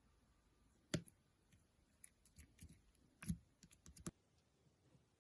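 Near silence broken by a few isolated sharp clicks: three more distinct ones about a second in, at about three and a third seconds and just after four seconds, with a few fainter ticks between.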